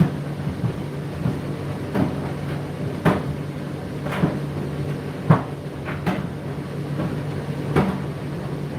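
Condenser tumble dryer running: a steady motor hum with the load thudding in the turning drum about once a second.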